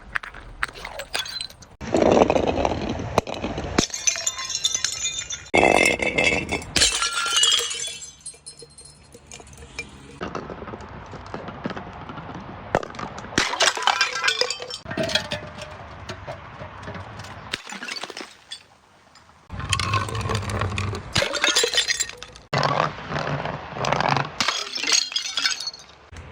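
Glass bottles being broken and crushed: several separate bouts of crunching and cracking with clinking shards of glass.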